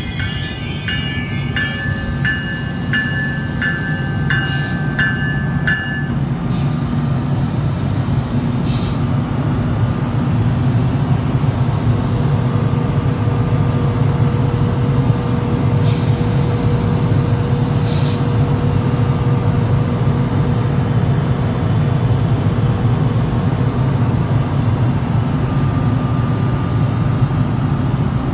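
NJ Transit ALP-46A electric locomotive standing close by, running with a steady low drone from its cooling blowers. For the first six seconds a bell rings steadily about twice a second.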